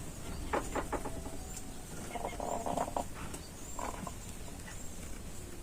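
A chicken snoring (ngorok): rasping, rattling noises in its breathing, a longer one about two seconds in and a shorter one near four seconds, after a few clicks near the start. The rattle is the sign of mucus in the bird's airway.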